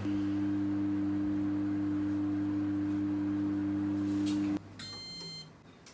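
Oven running with a steady low electric hum that cuts off suddenly about four and a half seconds in, then a short high electronic beep from its timer near the end.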